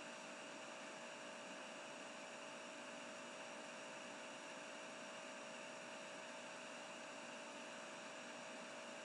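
Room tone: a steady faint hiss with a thin, steady hum running through it, and no other events.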